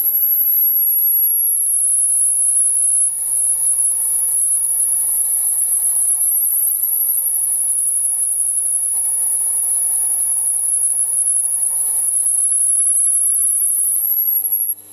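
Metal lathe cutting a groove into a spinning ball with a grooving tool: a steady, high-pitched squeal from the cut over the machine's hum. The squeal stops abruptly near the end as the cut finishes.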